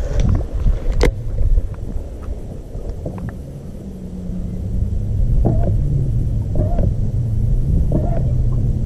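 Wind buffeting the microphone as a low, steady rumble, with one sharp click about a second in and a steady low hum in the second half.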